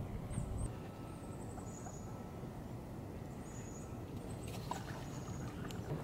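Small birds giving thin, high-pitched calls several times over a steady low rumble, with a short patch of crackling and clicks about four and a half to five and a half seconds in.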